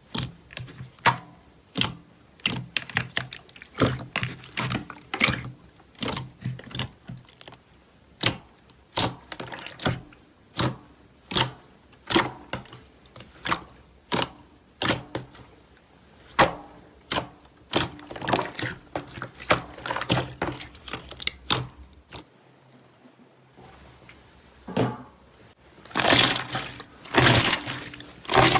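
Slime being pressed and squeezed, giving sharp, wet popping clicks about twice a second. There is a brief lull past the middle and a denser crackling stretch near the end.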